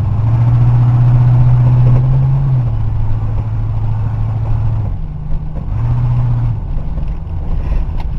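1978 Ford LTD's V8 engine running on a drive, a steady low hum that rises in pitch under throttle for the first couple of seconds, eases back, and rises briefly again about six seconds in.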